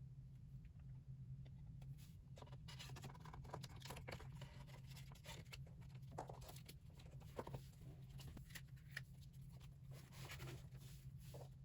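Faint rustling and scratching of K-pop album packaging and photocards being handled and unwrapped, in irregular bursts over a steady low hum.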